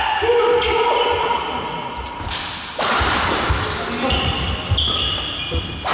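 Badminton doubles rally: court shoes squeaking on the hall floor, with sharp racket hits on the shuttlecock, one about three seconds in and another near the end.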